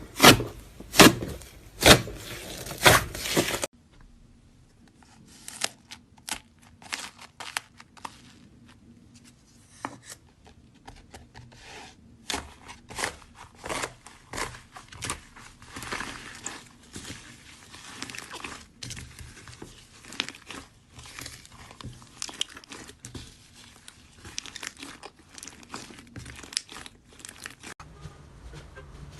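Slime being worked by hand, crackling and popping. Loud pops in the first few seconds, then softer, irregular crackling.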